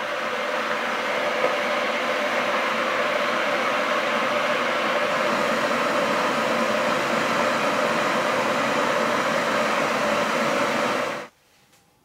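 Camry glass electric kettle heating water towards the boil, a steady hiss that cuts off suddenly about eleven seconds in.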